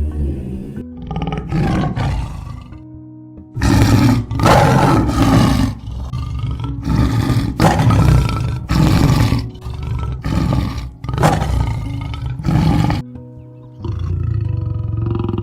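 A large wild animal roaring again and again, a rapid string of loud roars lasting about ten seconds, over background music.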